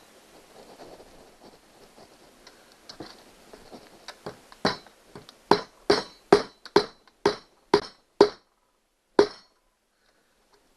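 A hammer tapping a plastic push-type rivet into a rivet hole in a kayak's rod-holder mount, about nine sharp taps roughly half a second apart after some quieter handling. The rivet is not seating fully.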